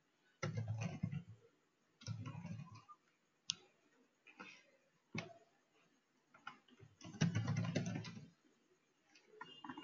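Computer keyboard typing in three short flurries of keystrokes, the last the longest and loudest, with a couple of single sharp clicks between them.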